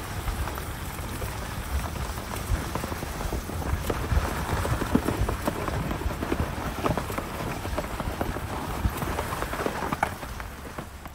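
Snow chains on a Lexus ES's front wheel clattering and crunching through packed snow as the car creeps forward, a dense irregular crackle over a low rumble.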